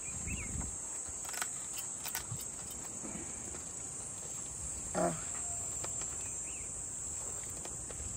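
Steady high-pitched insect chorus, with a few faint ticks and one short falling call about five seconds in.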